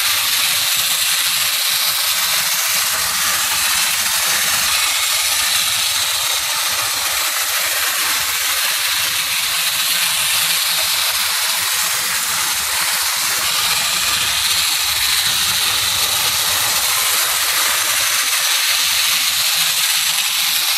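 Old motorised TOMY Thomas the Tank Engine toy running steadily around plastic track, its small electric motor, gears and wheels giving a continuous, even, hissing whir while it hauls its coaches.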